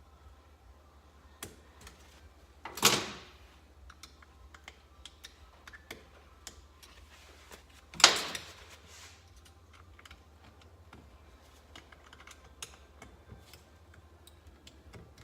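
Small metal tools clicking and tapping on an engine's clutch as a snap ring is worked out of its groove, with two louder metal clanks, about 3 and 8 seconds in, each ringing on briefly.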